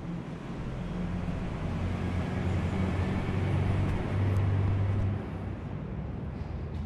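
A vehicle engine with a low hum and rumble, building up over several seconds and dropping away about five seconds in.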